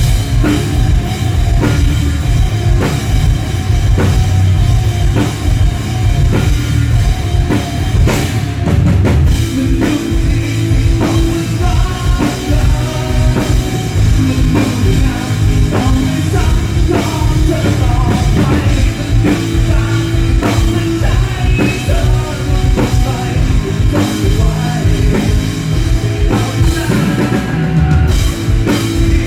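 Loud rock music with a steady drum-kit beat and singing, played through a sound system for a sound check.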